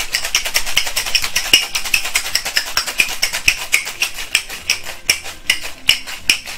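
Ice cubes rattling hard inside a metal cocktail shaker being shaken fast, a steady rhythm of sharp clacks several times a second that thins out and stops near the end.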